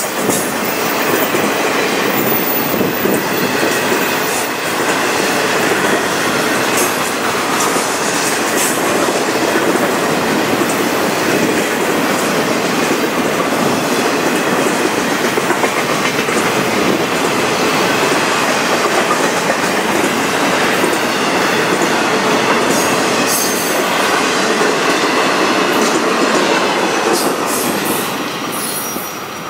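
Freight train cars rolling past on a curve: steel wheels on rail make a steady rumble and rattle, with clicking over the rail joints and a faint wheel squeal. The sound drops away near the end as the last car goes by.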